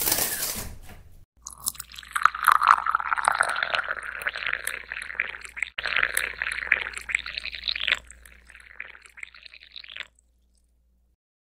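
Coffee being poured into a ceramic mug: a continuous splashing pour that breaks off for an instant about halfway and stops about ten seconds in. A short burst of noise comes just before the pour begins.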